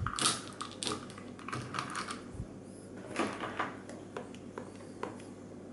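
Irregular light clicks and taps: a plastic model locomotive being handled on its track, and buttons pressed on a Lenz LH100 handheld DCC controller.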